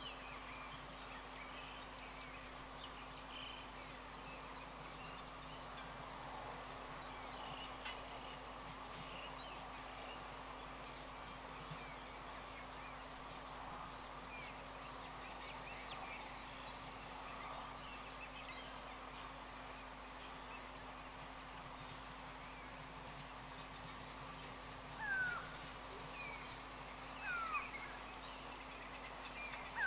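Small birds chirping and calling over a steady faint hum. Near the end come three louder short calls, each falling in pitch, a couple of seconds apart.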